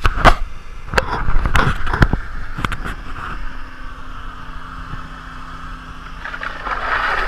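A few sharp knocks and bumps from the camera being handled. Then a small engine runs steadily with a low hum, most likely the engine pulling the wakeboarder, and a rush of water spray builds near the end as the rider comes in close.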